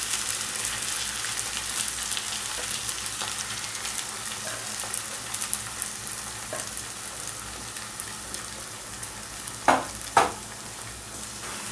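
Soaked, drained sago pearls frying in oil with onions in a kadai: a steady sizzle with fine crackles that slowly gets quieter. Two brief louder sounds come about two seconds before the end.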